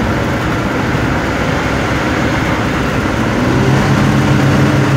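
Road and engine noise inside a moving vehicle's cabin. About three seconds in, an engine hum rises in pitch and then holds steady.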